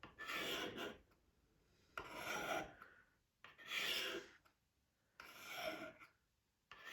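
Blade of a Swiss multitool drawn stroke by stroke along an alumina ceramic sharpening rod, making a dry scrape about every second and a half, four strokes with a fifth starting at the end.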